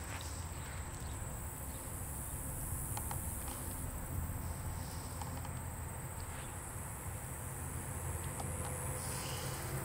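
Steady, high-pitched drone of insects, over a low rumble.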